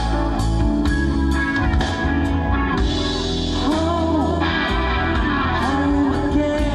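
Live rock band playing an upbeat song, with electric guitar, bass guitar, drums and keyboards in a loud, full mix.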